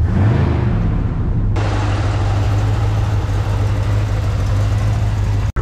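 A 1978 GMC K15's 350 cubic inch V8 runs. It revs briefly near the start, then idles steadily.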